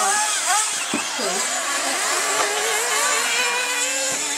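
Several radio-controlled racing buggies running on a track, their small engines revving up and down in overlapping whines that rise and fall continuously.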